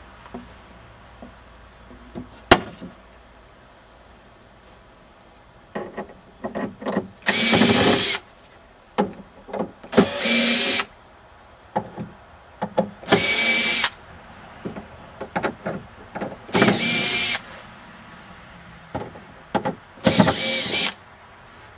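Cordless drill used as a screw gun backing screws out of plywood roof sheathing, running in five short spurts of about a second each. Light clicks and knocks come between the spurts.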